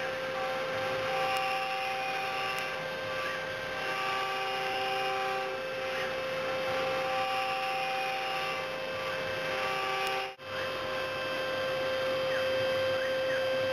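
CNC milling machine cutting block tooling material: a steady spindle whine over cutting noise, with other motor tones switching on and off every second or two as the machine moves. The sound drops out briefly about ten seconds in.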